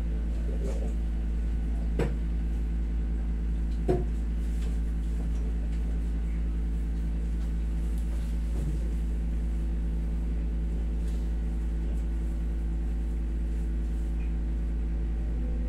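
Steady mechanical hum of a room air conditioner running, with two light knocks about two and four seconds in.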